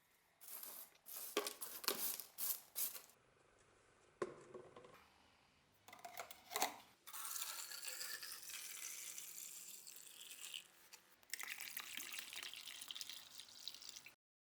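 A few sharp knocks and clinks of objects being handled, then liquid running or pouring steadily for several seconds, broken once, before the sound cuts off suddenly.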